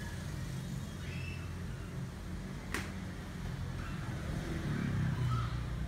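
Steady low rumble of road traffic, with faint voices in the background and one sharp click a little before the middle.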